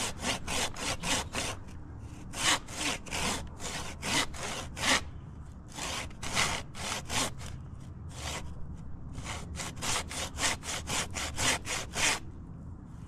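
Curved hand pruning saw cutting through the trunk of a dead birch tree in quick, even strokes. The strokes come in four runs with short pauses between them and stop about twelve seconds in.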